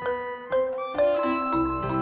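Music of struck, ringing, bell-like notes, about two a second, over lower bass notes.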